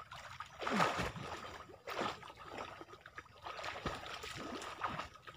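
Water splashing as a person swims with overarm strokes across a river, a splash about once a second.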